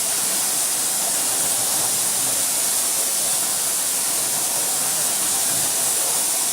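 Steady, even hiss at a constant level.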